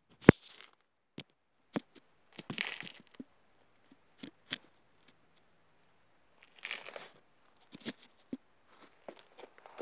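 Handling noise of a phone being moved about and set down on a gritty concrete floor: a sharp knock near the start, then scattered clicks, scrapes and crackles. No engine is running.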